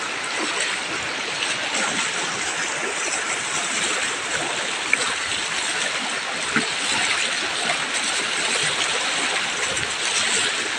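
Fast, muddy river running high after heavy rain, its strong current rushing steadily over rocks.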